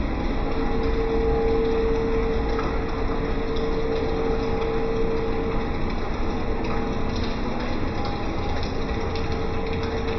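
A pump running steadily in pool plumbing: a dense, even hum with a mid-pitched whine that swells about half a second in, fades after about five seconds and returns near the end.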